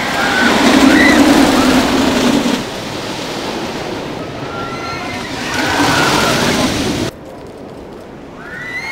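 Wooden roller coaster trains rumbling along the wooden track, loud as they pass twice, with riders screaming over the rumble. The sound cuts off suddenly about seven seconds in.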